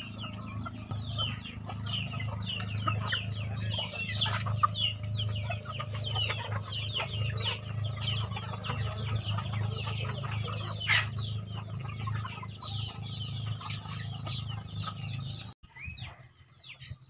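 A flock of free-range chickens clucking and calling, many short calls overlapping, over a steady low hum that cuts off near the end.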